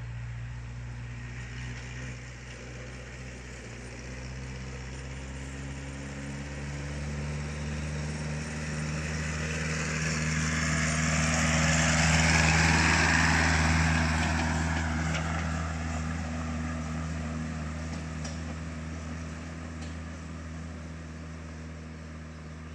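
Elpol K1 mini tractor, fitted with a 1.4 diesel from a VW Polo, running steadily while it tows a loaded log trailer past: the engine grows louder, is loudest as it passes about halfway through, then fades as it drives away.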